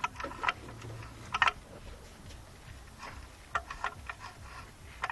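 Irregular light metallic clicks and ticks from the twinport flap linkage of a Z22YH intake manifold being moved by hand, with the loudest pair about a second and a half in.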